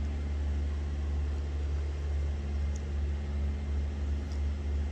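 A machine running with a steady, loud low hum at an unchanging pitch.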